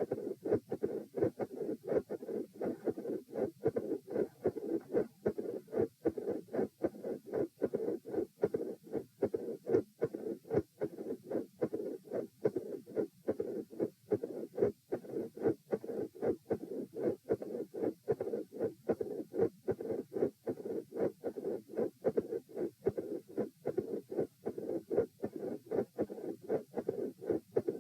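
Heart sounds beating in a steady, even rhythm: the first heart sound splits on some beats, with a mid-systolic murmur and a murmur at the second heart sound.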